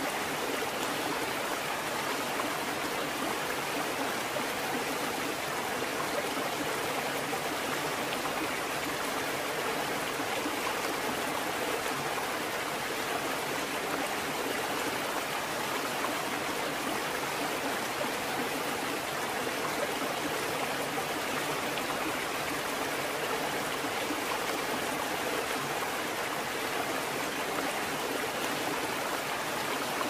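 Rushing water, a steady, even hiss with no rise and fall of breaking waves.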